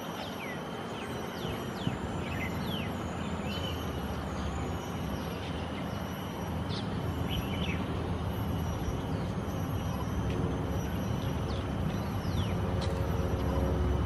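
Outdoor ambience: a steady low rumble like distant traffic, growing a little louder near the end. Over it are many short, high, falling chirps of small birds calling.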